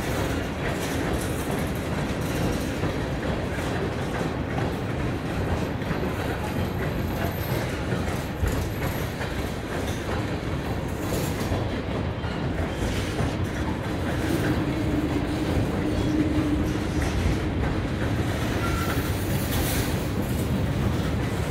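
Freight train's tank cars rolling past close by, a steady rumble of steel wheels on rail with clicks as the wheels cross the rail joints.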